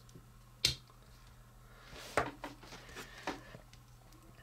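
Small plastic transforming toy figures handled and snapped by hand: one sharp click about two-thirds of a second in, then several softer plastic clicks and handling noise.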